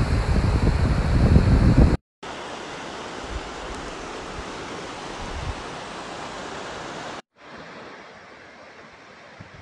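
Flash-flood water rushing down a wadi, a steady noise of fast-flowing water. For about the first two seconds wind buffets the microphone with loud low gusts. The sound breaks off twice with brief silences, each time coming back quieter.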